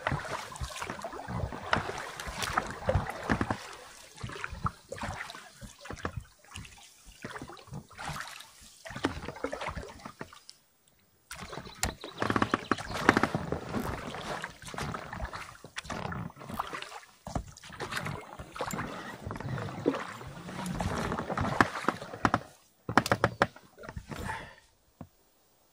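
Oars of an inflatable rowing boat dipping and sloshing in the river, with irregular knocks and clatters. The sound drops out briefly a little before halfway.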